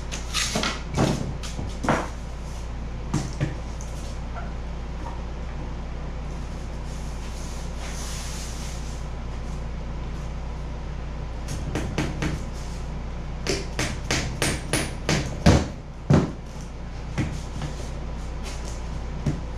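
Knocks and clatters of hand tools and clamps on foam gunnel strips and the work table: a few scattered knocks at the start, then a quicker run of knocks past the middle, the loudest two close together. A steady low hum runs underneath.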